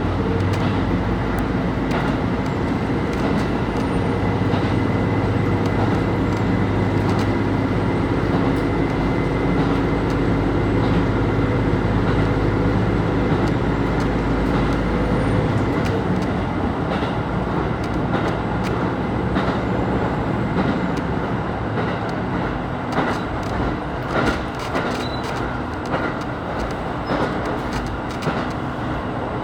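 KiHa 25 diesel railcar running: the diesel engine pulls with a steady low drone for about the first half, then drops away about halfway through as the railcar coasts. In the second half, wheels click over rail joints.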